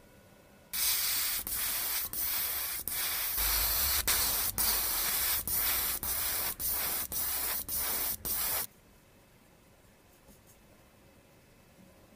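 Airbrush spraying paint, a loud hiss in a run of short bursts with brief breaks between them, starting under a second in and cutting off abruptly near nine seconds.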